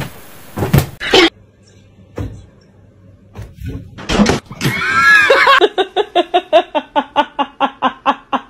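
A few sharp knocks and thuds, then a person laughing hard in quick, rhythmic bursts, about four to five a second.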